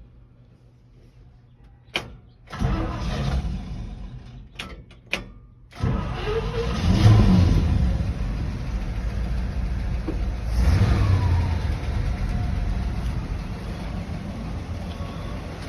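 Chevrolet 307 small-block V8 in a 1970 C10 pickup being started: a click, a burst of starter cranking about two and a half seconds in, then the engine catches about six seconds in, is revved twice and settles to a steady idle. The engine is being checked for whether an earlier knock is gone.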